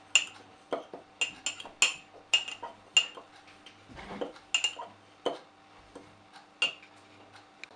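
A spoon clinking against the inside of a mug while dry ingredients are stirred in it: irregular sharp clinks with a short ring, about one to two a second, growing sparser near the end.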